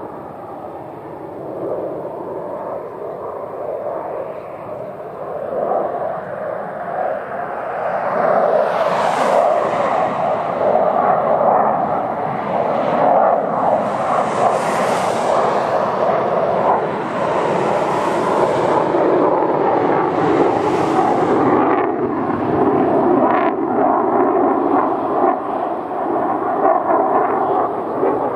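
Lockheed Martin F-22 Raptor in a display pass with its twin Pratt & Whitney F119 engines in afterburner: jet noise that grows louder about eight seconds in, with several hissing swells.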